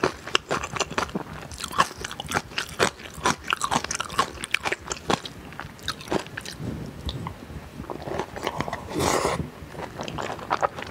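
Close-miked eating sounds of a mouthful of spicy curry rice with Buldak fire noodles: wet chewing with many crisp crunching clicks, and a longer airy sound about nine seconds in.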